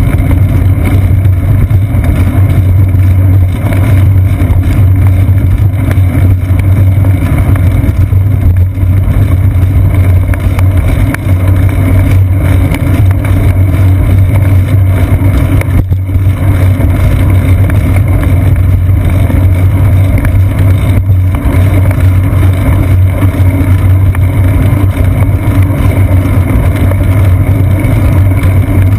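Steady, loud low drone of wind and riding vibration picked up by a seat-post-mounted GoPro camera on a bicycle rolling along a concrete path.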